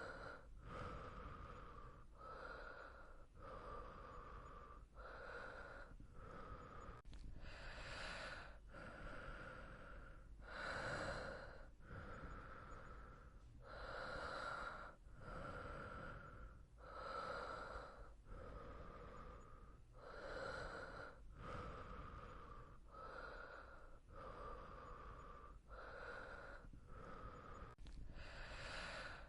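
Slow, even breathing of a person asleep, breaths in and out alternating steadily at about one full breath every three seconds.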